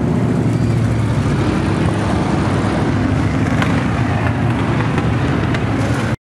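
V8 dirt-track stock cars racing together on the oval, a loud, steady engine drone. It cuts off suddenly near the end.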